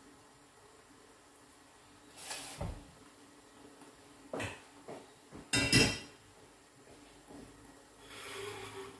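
Kitchen clatter: single knocks about two and four and a half seconds in, then a louder rattling clatter of kitchenware near six seconds.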